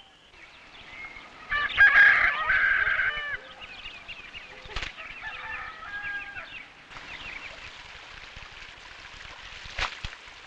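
Rooster crowing loudly about two seconds in, followed by fainter crowing calls and a steady hiss; a sharp click near the end.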